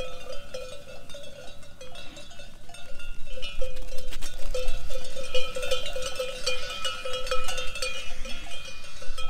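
Bells on a flock of ewes clanking continuously as the sheep rush out to pasture, getting louder from about three seconds in.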